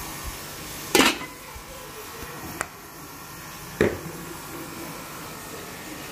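An aluminium lid being set onto a cooking pot: a sharp metallic clank about a second in, a faint clink, then a second clank just before four seconds, over a steady background hiss.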